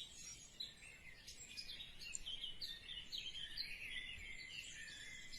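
Faint birds chirping and twittering, a stream of short, quick high notes.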